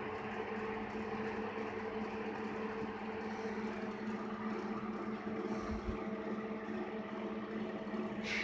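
Steady electrical hum and fan whir from the switched-on control and power unit of a Sir Meccanica portable line boring and bore welding machine.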